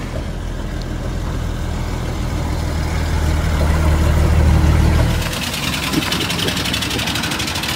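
1960 Dodge D100 pickup's engine running as the truck drives up, growing louder until about five seconds in. The engine sound then drops away and a steady, fast rattle takes over.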